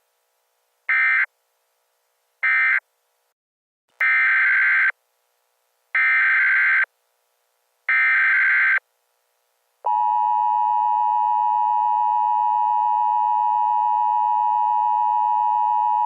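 Emergency Alert System data and tone sequence. First come the last two of three short end-of-message data bursts, falling about a second and two and a half seconds in. Then, from about four seconds in, three longer SAME header data bursts of about a second each sound two seconds apart, each a harsh buzzy screech. About ten seconds in, the steady two-tone EAS attention signal starts and holds.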